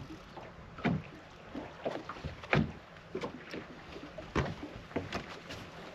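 Small waves slapping irregularly against the hull of a bass boat: a series of sharp water slaps, the loudest about a second in, at two and a half seconds and near four and a half seconds.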